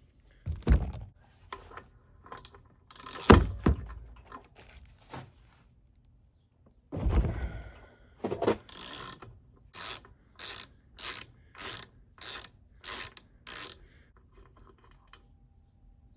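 Ratchet wrench on a 22 mm socket backing out the backup light switch of an NV3500 transmission: a few scattered clanks of the tool at first, then about nine short clicking ratchet back-strokes at a steady pace, roughly two a second.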